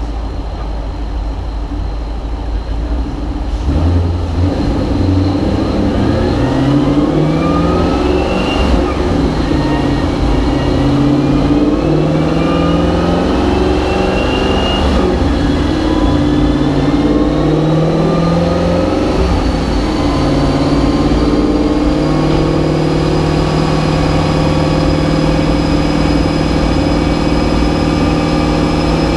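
Twin-turbocharged Ford Coyote 5.0 L V8 in a Mustang, running on a chassis dyno. The engine's pitch climbs and drops back several times, as if shifting up through the gears, then holds steady for the last third, with a thin high whine that slowly rises above it.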